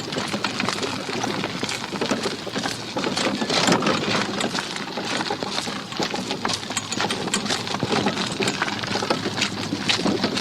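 Cart wheels rolling over concrete: a continuous dense rattle of many small clicks and knocks.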